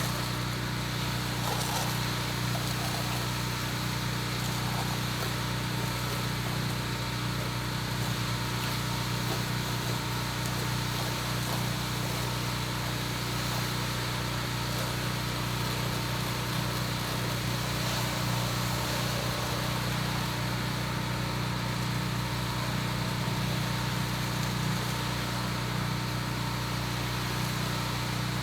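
Gas pressure washer running steadily: an even engine hum with a steady hiss over it.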